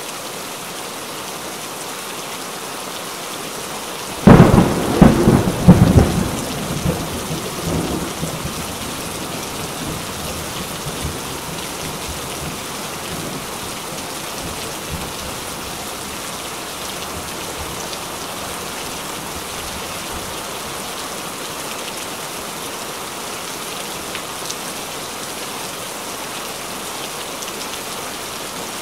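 Steady rain falling on shallow water. About four seconds in, a sudden loud clap of thunder rumbles and fades over the next few seconds.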